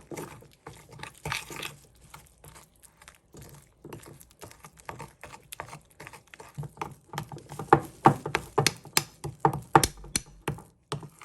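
Irregular light clicks and taps of kitchen utensils, coming quicker and louder in the second half.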